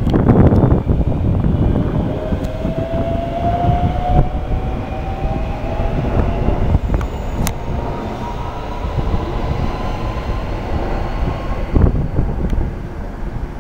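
Electric multiple unit pulling away, its traction motors giving a whine that rises slowly in pitch as the train accelerates, over a steady rumble of wheels on rail. The rumble is loudest in the first second.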